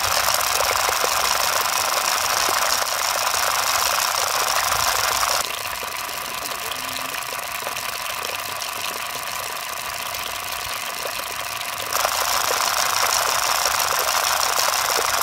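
A miniature model diesel water pump running with a steady high whine and rattle, with water splashing out of its outlet. It is quieter for several seconds in the middle and loud again about twelve seconds in.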